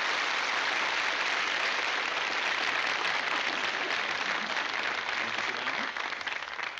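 Studio audience applauding steadily, thinning out near the end.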